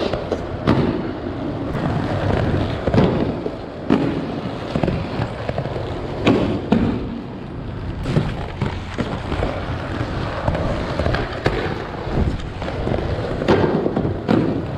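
Skateboard wheels rolling, with repeated sharp clacks and knocks from the boards popping, hitting a rail and landing.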